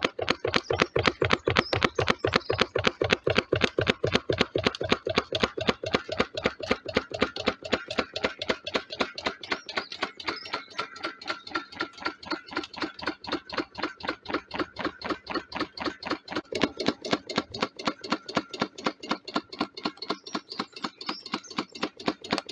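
Home-built alpha Stirling engine running, with a rapid, even clonking of several knocks a second as it turns over. The builder traced the loud clonking to a bolt he had left loose.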